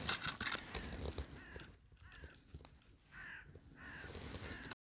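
Crows cawing: a string of short, harsh, falling calls, with a brief rustle in the first half-second; the sound cuts off suddenly near the end.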